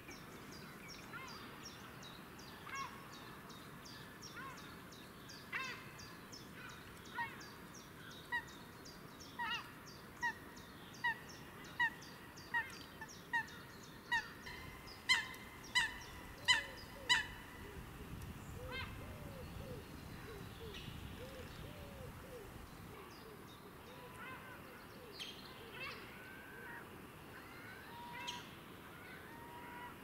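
Eurasian coot giving a run of short, sharp calls, about one a second, growing louder over some ten seconds and then stopping. Faint chirping from small birds carries on underneath.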